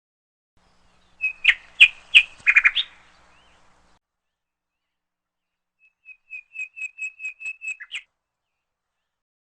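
A small bird chirping: a few loud, sharp chirps starting about a second in, then after a pause a quick run of about ten short, even high notes.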